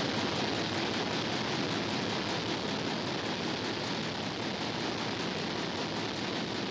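Steady machinery noise of the kind heard in a ship's engine room: an even hiss and rumble at a constant level, with no distinct strokes or tones.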